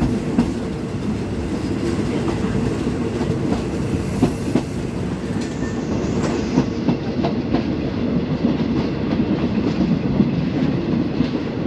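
Passenger coaches running over jointed track, heard through an open window: a steady rumble with irregular wheel clicks over the rail joints, while a second passenger train passes close by on the next track.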